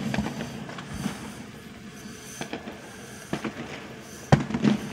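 Aerial fireworks shells bursting with sharp bangs: a few lighter bangs spaced out, then the loudest boom near the end, followed by a quick run of smaller pops.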